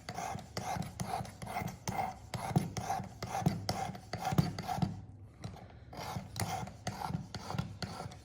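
Work Sharp precision sharpener's abrasive being stroked back and forth along the edge of a steel single-bevel broadhead. It gives a rhythmic scraping at about two to three strokes a second, with a short lull around halfway before the strokes resume. The strokes are raising a burr on the edge.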